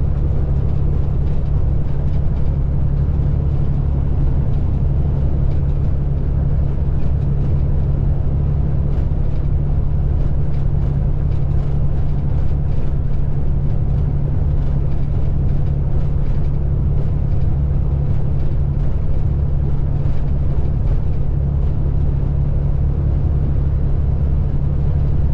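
Semi truck heard from inside the cab while driving at road speed: a steady low drone of engine and road noise, even throughout.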